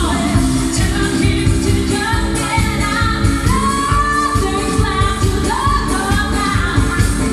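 Disco dance music with a steady pounding beat and a singing voice holding long notes.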